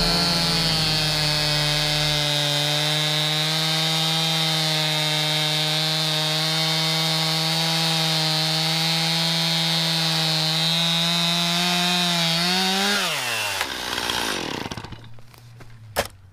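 Stihl two-stroke chainsaw at full throttle, cutting through a log with a steady high engine note. About twelve seconds in the pitch rises briefly, then the engine winds down as the throttle is released. A single sharp click comes near the end.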